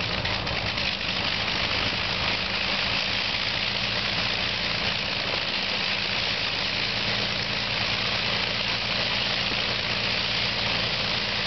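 Avro Lancaster bomber's Rolls-Royce Merlin V12 piston engines idling steadily during a ground run, a low, even drone with a steady hiss over it.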